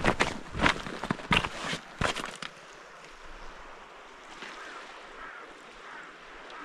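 Footsteps on the shore for the first two seconds or so, then a steady rush of moving water with some wind.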